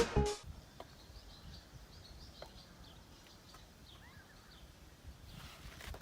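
Faint outdoor ambience with small birds chirping a few times, high and brief, after a burst of music cuts off at the start.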